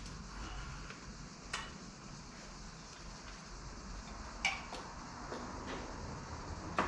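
Sharp metallic clicks of a recumbent trike's seat being shifted on its frame mounts into a new position, three distinct clacks a few seconds apart.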